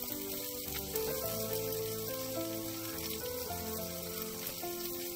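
Chopped green chilies, shallots, garlic and leunca berries sizzling as they are stir-fried in a wok, with background music playing a simple melody.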